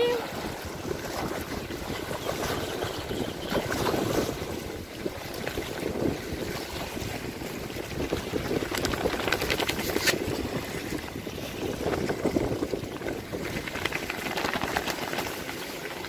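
Gusty wind buffeting the microphone over choppy water washing against the shore, with a motorboat running out on the water.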